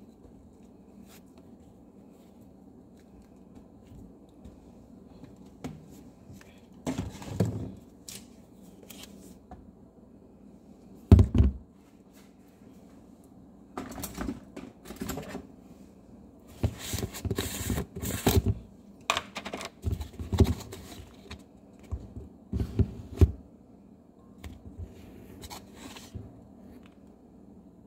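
Scattered knocks, thumps and rustles of food and containers being handled beside a glass blender jar, with the heaviest thump about eleven seconds in and a run of knocks a few seconds later. A steady low hum sits underneath; the blender motor is not running.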